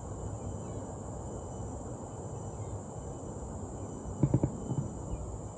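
Steady high-pitched insect drone over a low background noise, with a quick cluster of knocks about four seconds in.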